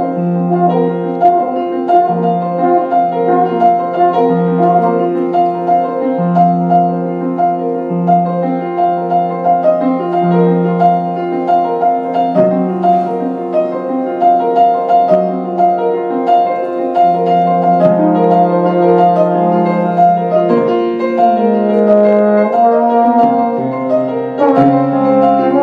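Improvised solo piano playing a slow, brooding passage over a low note struck again every second or two.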